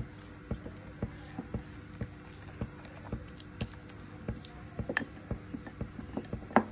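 A hand stirring thin besan (gram-flour) batter in a glass bowl: light wet taps about two a second, with a sharper click about five seconds in and another near the end.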